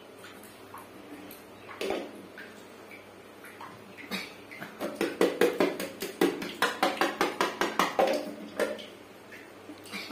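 A quick run of light taps or slaps, about five a second, lasting about four seconds in the middle, with a small echo off the tiled walls of a small bathroom.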